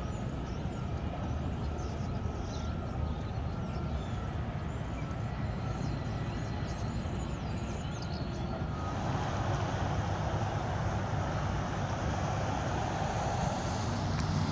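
Steady low rumble of vehicle engines, growing a little louder and fuller about nine seconds in.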